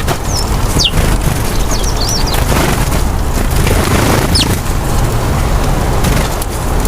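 White doves' wings flapping in flight over a steady low rumble, which is the loudest part. Two brief swells of rushing sound come near the middle, and short high chirps from small birds are heard a few times.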